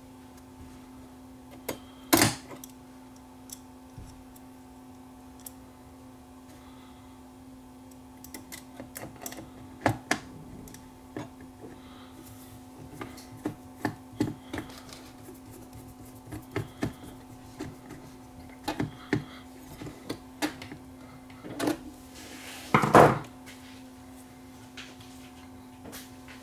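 Small scattered clicks and taps of a screwdriver and loose metal parts being handled on a turntable's sheet-metal chassis during disassembly, with a louder knock about two seconds in and a short clatter near the end. A steady low hum sits underneath.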